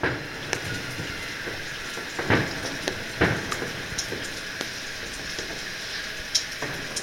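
Fireworks going off: two deep booms about two and three seconds in, over a steady crackling hiss with scattered sharp cracks.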